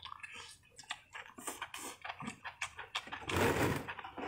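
Close-up mouth sounds of chewing a mouthful of grilled enoki mushrooms: small wet clicks and smacks, with one louder rushing noise lasting about half a second near the end.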